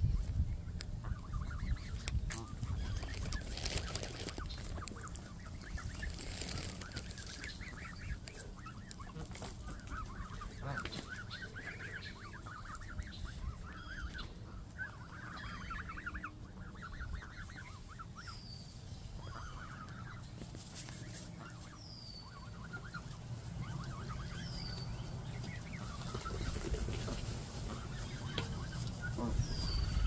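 Canada geese feeding close by, giving clusters of short, rapid low calls. In the second half a high, falling chirp repeats every two or three seconds.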